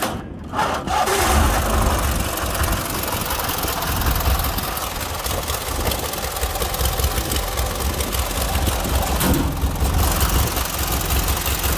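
Murray riding mower's twin-cylinder engine starting: a brief crank, and it catches within about a second, then idles steadily.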